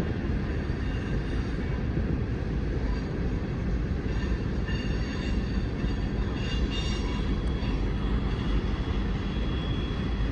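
Union Pacific manifest freight train rolling past at close range: a steady, continuous rumble of steel wheels on rail, with faint high wheel squeal coming and going around the middle.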